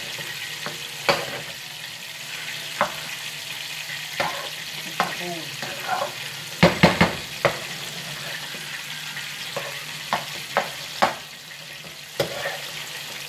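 Fried rice sizzling in a frying pan as it is stirred to mix in the ingredients: a steady sizzle with irregular scrapes and knocks of the utensil against the pan, bunched together about halfway through.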